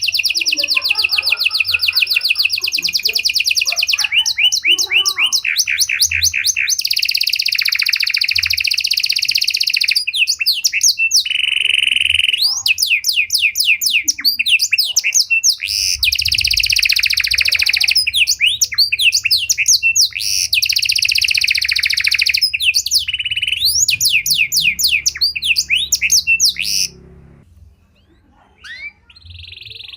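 Pied 'panda' canary singing a long, varied song of rapid trills and rolls, switching to a new phrase every second or two. The song stops abruptly about 27 seconds in, and a few faint chirps follow.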